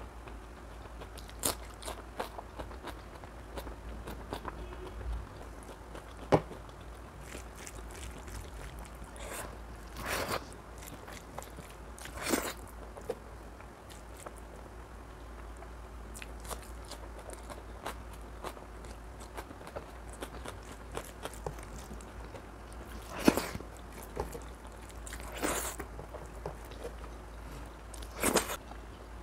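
Close-miked sounds of a person eating mutton curry: chewing and wet mouth sounds, with scattered short bites and smacks and a sharp click about six seconds in.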